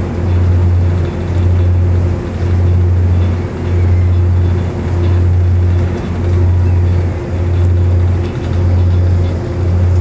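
Ferry's engines running with a loud, low hum that swells and dips about once a second, and a fainter steady higher tone above it.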